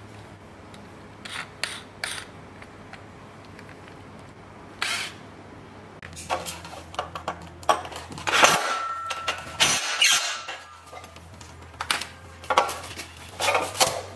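A few clicks as a bit is tightened into a Worx cordless drill's chuck. About halfway through, the drill whines as it drives a screw into corrugated galvanized steel sheet, with metallic clatter. Near the end there are knocks from handling the sheet and foam.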